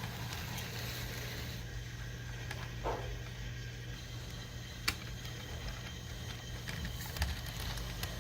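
HO scale model train running on its track: a steady low hum with a few sharp clicks, the loudest about five seconds in.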